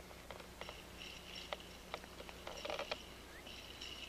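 Insects trilling in short repeated stretches, with scattered clicks and taps from hands working at a deer feeder's motor unit under the hopper, clustering about three seconds in.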